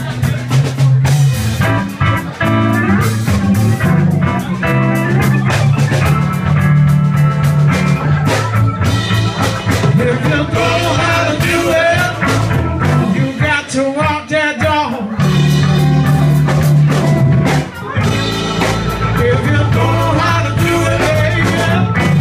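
Live blues band playing: electric bass, electric guitar, keyboard and drum kit, over a steady bass line that drops out briefly about two-thirds of the way through.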